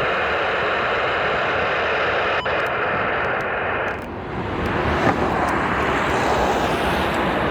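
Jet noise of a Bombardier Global Express XRS's twin Rolls-Royce BR710 turbofans on takeoff: a steady rush that dips about four seconds in, then comes back fuller with a higher hiss.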